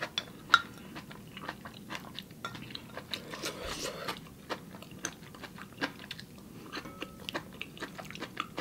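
Close-miked chewing of noodle soup: scattered wet mouth clicks and smacks, with a brief slurp about three and a half seconds in.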